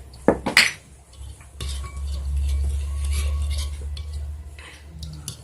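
A utensil clinks twice against a bowl, then a few seconds of stirring with a low rubbing, scraping noise.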